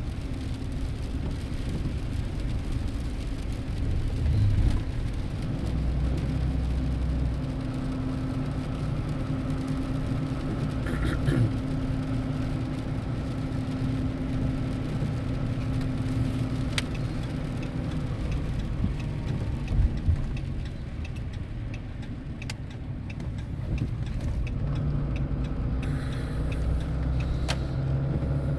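Car driving in the rain, heard from inside the cabin: steady engine hum and tyre and road noise, with a few sharp clicks along the way.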